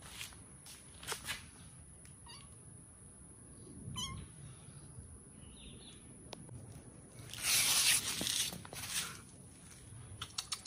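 Small kitten mewing faintly a few times, in short high-pitched mews. A loud scuffing rustle close to the microphone comes about seven and a half seconds in, with scattered light clicks.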